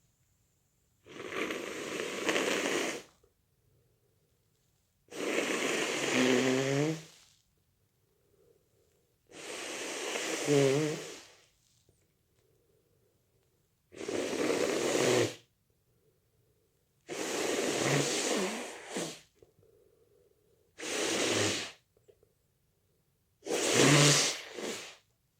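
A person with a head cold blowing their nose seven times. Each blow is a rush of air about two seconds long, and some end in a wavering, honking pitch.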